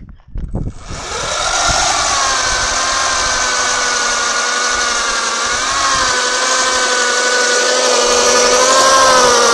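A 55-amp car alternator, converted into an electric bike motor, whining as it spins the bike's rear wheel in a burnout, the tyre hissing as it scrubs on the pavement. The whine comes up about a second in, then holds steady, wavering a little in pitch twice.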